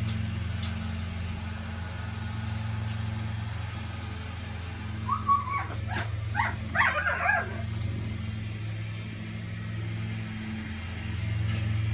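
A small dog gives a quick run of short yips and whimpers about five seconds in, over a steady low hum.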